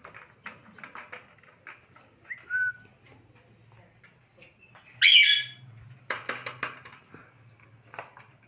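Parrot calling: a short whistle about two and a half seconds in, then a loud call about five seconds in, followed by a quick run of sharp clicks, with faint scattered clicks and scuffs throughout.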